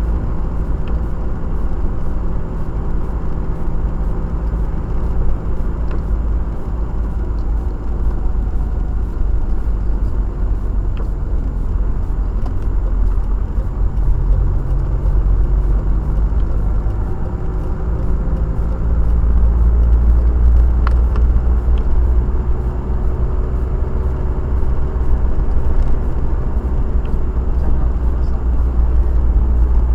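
Car being driven, heard from inside the cabin: a steady low road and engine rumble, the engine note shifting partway through and getting louder about two-thirds of the way in.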